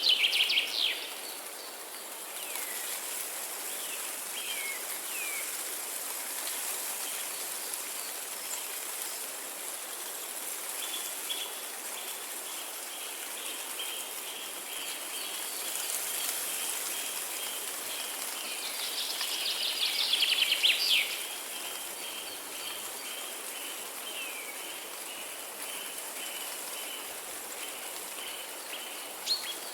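Steady hiss of flowing river water and rain under songbirds. Loud bursts of birdsong come at the start and about two-thirds of the way through, a few short falling chirps follow in the first seconds, and a continuous high trill runs through the second half.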